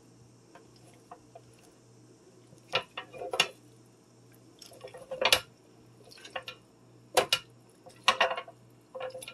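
Wet raw turkey being handled on a metal roasting pan and wire rack: scattered short wet slaps, drips and clunks against the metal, about half a dozen of them, as the rinsed bird drains.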